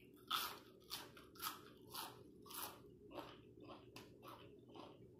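Close-up chewing of crunchy food, a crunch roughly every half second, the bites growing softer in the second half.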